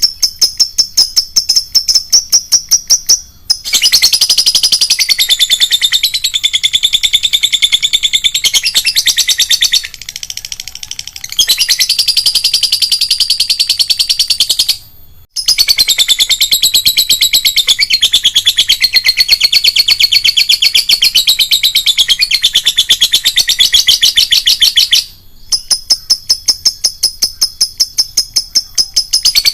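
Lovebird chattering in long runs of rapid, high-pitched trilling (the 'ngekek panjang' long chatter prized in competition lovebirds), broken by short pauses about 3.5, 10 and 15 seconds in. At the start and again near the end it switches to rows of sharp, evenly repeated chirps.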